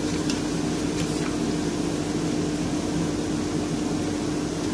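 Bandsaw running free with no wood in the blade: a steady hum with a constant tone.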